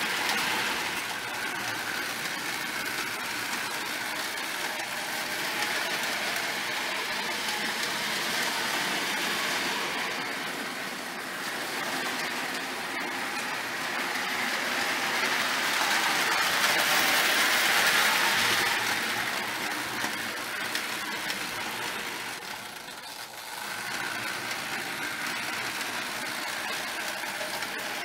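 Marx No. 666 O-27 toy train running on tinplate track: the steady whirr and rattle of the locomotive's electric motor and the wheels on the rails. It swells louder about two-thirds of the way through and dips briefly near the end.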